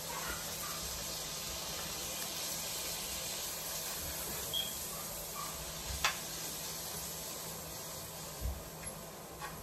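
Butter sizzling in a hot frying pan with a steady hiss while it is stirred, with one sharp tap of the utensil against the pan about six seconds in.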